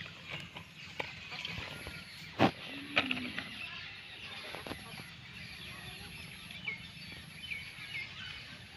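Outdoor ambience with birds calling, short chirps near the end, and two sharp knocks a few seconds in.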